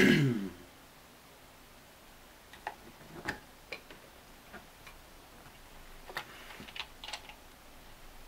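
Scattered small clicks and taps of a Bakelite sewing-machine foot controller's housing being handled and fitted back together, with a brief louder scrape that falls in pitch right at the start.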